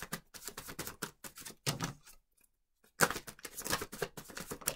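Tarot deck being shuffled by hand, a rapid patter of card edges flicking against each other, in two runs of about two seconds with a short pause between.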